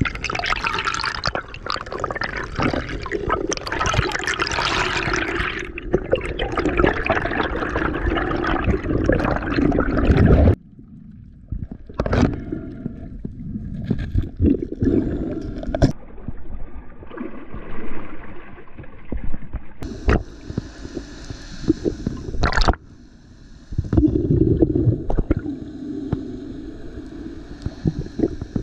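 Water sloshing and gurgling around a freediver's camera: dense and loud for about ten seconds, then dropping suddenly to quieter water noise with scattered sharp clicks and knocks.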